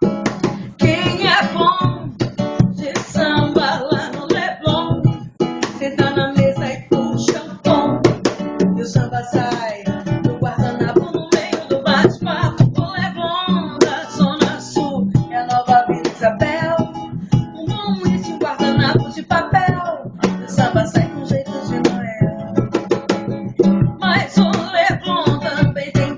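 Acoustic guitar played live, with a voice singing a song over it.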